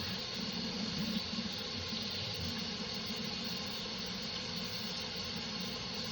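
Hot water running steadily from a tap onto slime.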